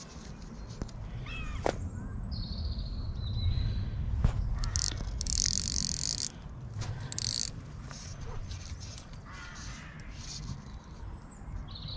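Birds calling, a crow cawing among them, over a steady low rumble. A loud hissing rustle fills about five to six seconds in, with a shorter one near seven and a half seconds.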